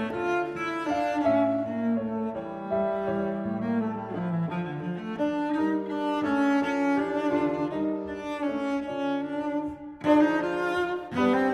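Instrumental background music led by bowed strings, held notes moving from one to the next, with a brief drop about ten seconds in before it comes back louder.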